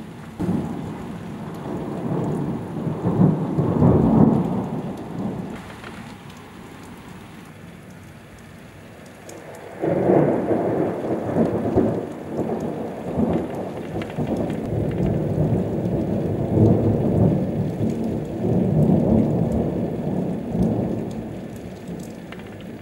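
Thunder rumbling twice over steady rain. The first roll builds for a few seconds and dies away; about ten seconds in, a second clap starts abruptly and keeps rumbling for around ten seconds.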